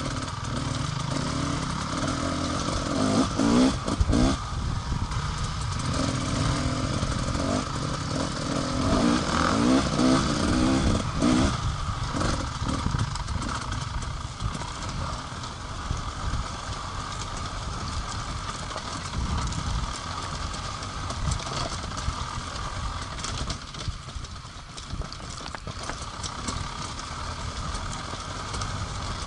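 Enduro motorcycle engine running, its pitch rising and falling with throttle over the first dozen seconds, then settling into steadier, lower running.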